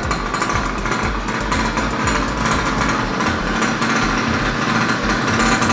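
Mini ATV's 50 cc air-cooled single-cylinder two-stroke engine idling steadily.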